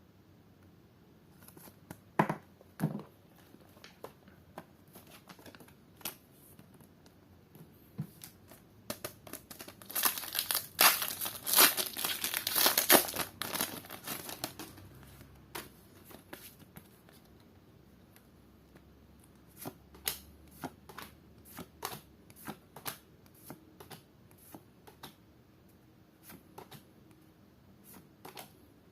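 A foil trading-card booster pack being torn open, its wrapper crinkling and tearing in a dense stretch about a third of the way in. Later comes a long run of light, sharp clicks and snaps as the cards are handled.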